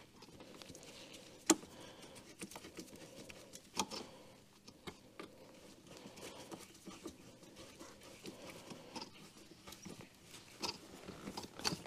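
Scattered faint clicks and taps of parts and hand tools being handled during work in a car's engine bay, the sharpest about a second and a half in and again about four seconds in.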